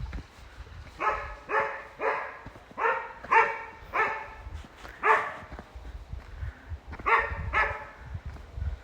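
A dog barking repeatedly: about nine short barks, mostly in quick pairs, with a pause of about two seconds before the last two.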